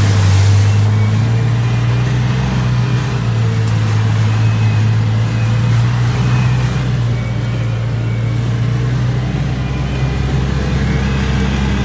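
A motor vehicle running steadily: a constant low engine drone with road noise.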